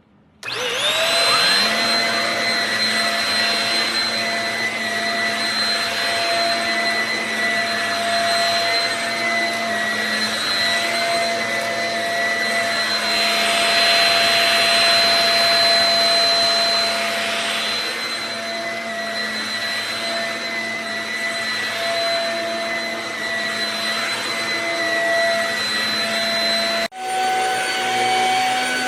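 Shark HV322 Rocket corded stick vacuum switching on and spinning up to a steady whine, then running with its hiss swelling and easing. Near the end the sound cuts off abruptly into a different steady motor tone.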